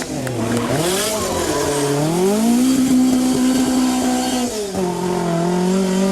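Rally car engine at speed: the revs fall and climb through quick gear changes in the first two seconds, then hold high and steady, with another drop about four and a half seconds in.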